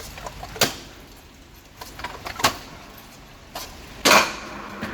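Stunt scooter clacking on wet asphalt during flat-ground tricks: four sharp knocks a second or so apart, the last and loudest near the end.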